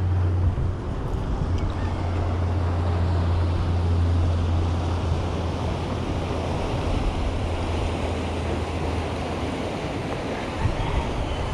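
Large motor yacht's engines running with a low, steady drone as it moves past through the channel, fading out about three-quarters of the way through as it pulls away. Wind noise on the microphone and the rush of water go on underneath.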